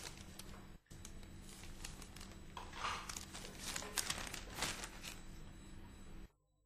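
Newspaper rustling and crinkling as it is shaken open and its pages handled, in several short rustles. It cuts off suddenly near the end.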